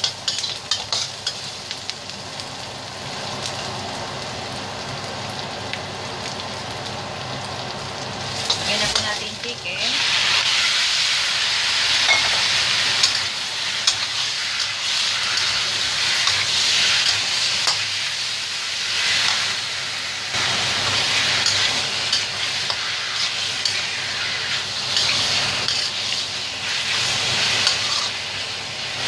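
Onion and garlic sizzling in oil in a stainless steel wok, stirred with a spatula that clicks against the metal. About a third of the way through, raw chicken pieces go in and the sizzling becomes louder and stays loud.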